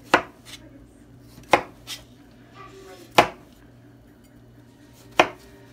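Knife chopping pears on a plastic cutting board: four sharp knocks of the blade hitting the board, spaced one and a half to two seconds apart, with a few lighter taps between them.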